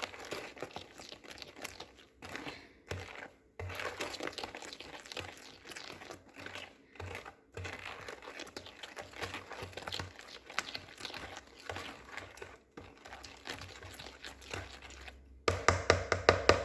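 A spoon stirring a thick, hot condensed-milk and sugar candy mixture in a mixing bowl, with continuous gritty scraping because the sugar is not yet fully dissolved. Near the end there is a quick run of loud knocks.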